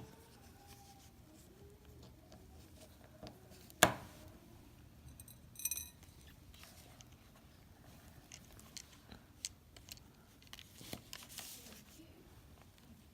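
Small clicks and rattles of plastic headset parts and a small screwdriver being handled while a screw is fitted, with one sharp knock about four seconds in and a brief high metallic ring shortly after.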